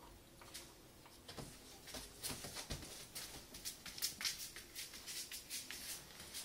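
Springer spaniel's claws clicking and pattering on a wooden floor as it walks, a quick irregular run of clicks that starts about two seconds in, with one low thump just before it gets going.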